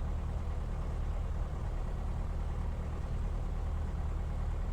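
Piper Cherokee's piston engine running steadily at low power before the takeoff roll: an even low hum with no change in pitch.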